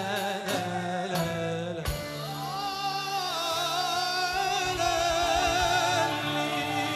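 Male vocalist singing an Arabic tarab melody with a live ensemble: a few short ornamented phrases, then from about two seconds in one long, wavering held note over the accompaniment.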